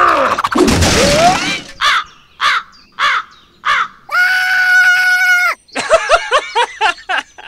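Cartoon sound effects: a noisy crash with a yell at the start, then a squeaky cartoon voice giving four short yelps, one long held note, and a quick run of babbling syllables.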